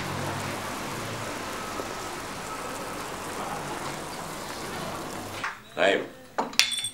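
Street ambience: a steady, noisy hiss with indistinct voices. It cuts off about five and a half seconds in, and a few short, louder sounds follow.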